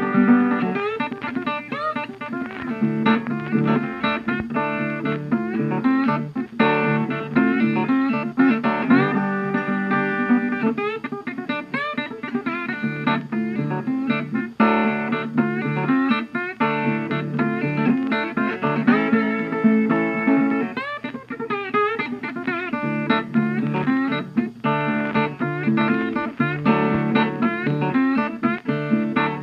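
Background music: plucked acoustic guitar, some notes sliding in pitch, played continuously.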